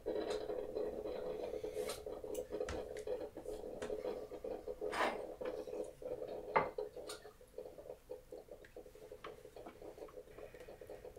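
Small scattered clicks and knocks over a steady low hum, with two louder knocks about five and six and a half seconds in.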